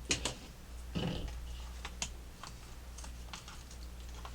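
Irregular light clicks and taps of a spoon against a cup of shaved ice.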